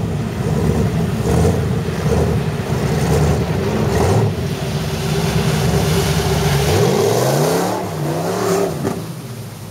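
Lifted Ford pickup's engine revving hard as the truck churns through a mud pit, tyres throwing mud and water. A little after the middle the revs rise and fall several times, then ease off near the end.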